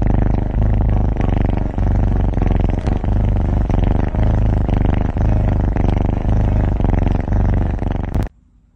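Kitten purring loudly, very close to the microphone: a steady low rumble of rapid even pulses that comes in breath-long stretches with short breaks, cutting off suddenly near the end.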